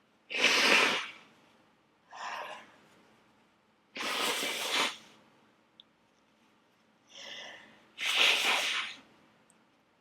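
A person sneezing three times, about four seconds apart, with a quieter in-breath before the second and third sneezes: part of a sneezing fit brought on by attic dust.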